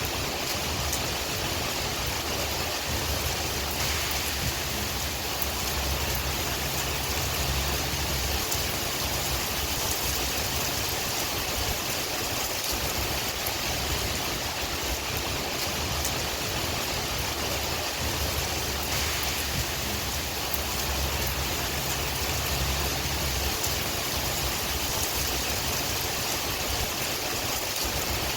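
Steady rain with wind: an even hiss with scattered drop ticks, over a low rumble that swells and eases slowly.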